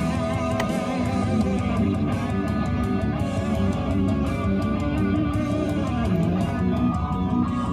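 Guitar-driven music with electric guitar, strummed chords and a bass line, playing steadily.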